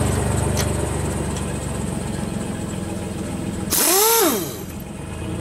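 A pickup truck's engine idling steadily. Then, about three and a half seconds in, a cordless power wrench whirs briefly, its whine rising and falling as it spins a wheel's lug nut.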